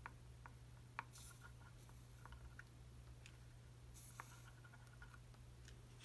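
Near silence: a steady low room hum with a few faint ticks and brief soft hisses.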